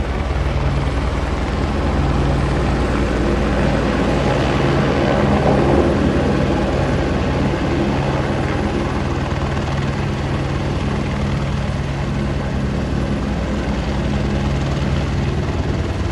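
Helicopter's rotor and engine running steadily as it descends and sets down on a helipad, loudest about a third of the way in.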